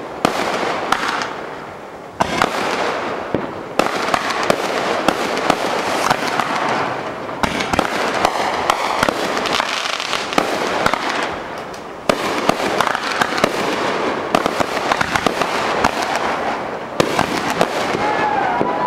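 Fireworks display: dense crackling and rapid sharp pops from bursting aerial shells, coming in waves that begin abruptly every few seconds.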